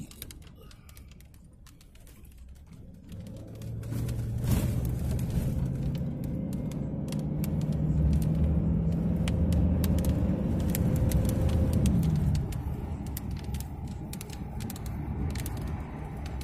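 Vehicle engine and tyres on a gravel road heard from inside the cab: quiet at first, then the engine note rises slowly as the vehicle picks up speed for several seconds and drops away about three quarters of the way through, with scattered light ticks over the road noise.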